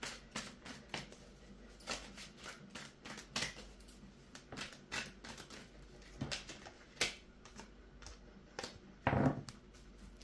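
A tarot deck being shuffled by hand: a run of soft, irregular card clicks and slaps, a few a second, with a louder burst about nine seconds in.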